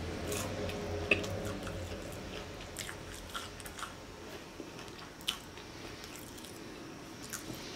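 A person eating beef pho, taking a spoonful and then chewing, with wet mouth sounds and scattered small clicks. A sharper click comes about a second in and another about five seconds in.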